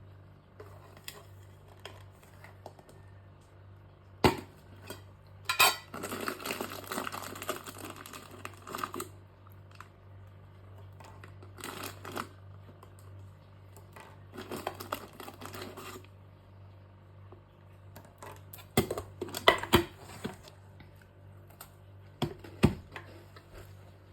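Tableware being handled: sharp clicks and knocks, with three stretches of rustling a second or more long. A steady low hum runs underneath.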